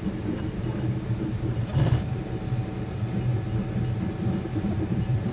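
A steady low hum with a short noise about two seconds in.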